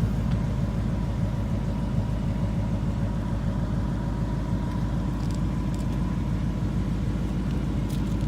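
2018 Ford Mustang GT's 5.0 Coyote V8 idling steadily with a low, even rumble.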